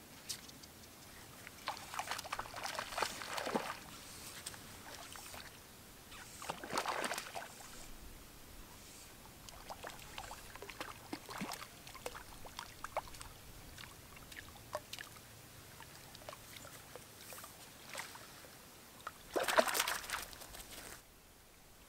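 A hooked fish splashing and thrashing at the water's surface as it is played on a fly rod, in several bursts of splashing with small splashes and ticks in between. The loudest splash comes near the end as the fish is scooped into a landing net.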